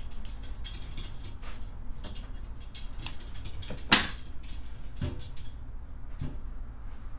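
Handling noises around a plastic egg tub as an egg is lifted out: scattered soft clicks and rustles, with one sharp click about four seconds in, over a low steady hum.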